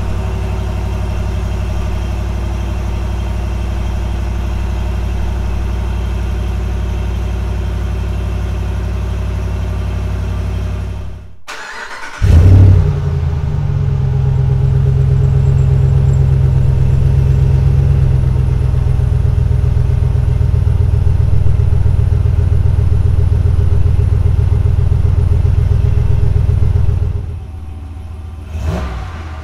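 Ram 1500 Rebel pickup idling on its stock exhaust, a steady low drone. After a short break, the truck starts on a MagnaFlow 19433 direct-fit muffler with a loud flare and settles into a louder, deeper idle. Near the end a brief rev rises and falls.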